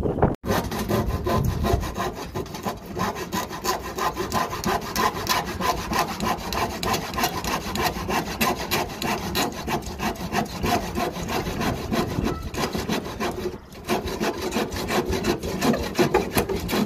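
Hand saw cutting through a wooden board in quick, steady back-and-forth strokes, with one short pause about three-quarters of the way through.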